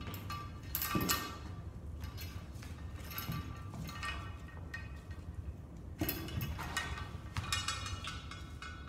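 Metal clinking and rattling from a cable machine's ankle-cuff clip, cable and weight stack as the cuff is fastened and the cable is pulled. Sharper knocks with a short metallic ring come about a second in and again about six seconds in, over a steady low hum.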